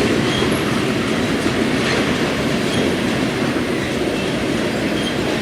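BNSF intermodal freight train's container cars rolling past: a steady noise of steel wheels running on the rails.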